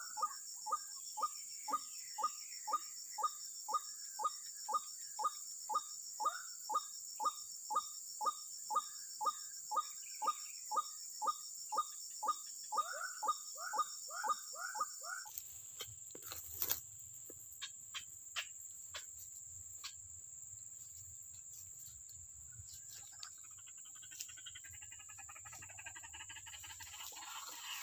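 White-breasted waterhen (ruak-ruak) calling: a fast, monotonous series of short falling calls at about two a second, over a steady high insect buzz. About halfway through the calls stop suddenly, leaving a few sharp clicks and faint rustling.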